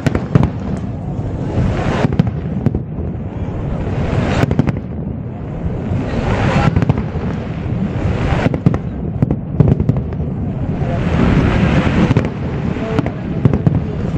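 Aerial fireworks display: shells bursting in many sharp bangs, one after another, over a steady low rumble.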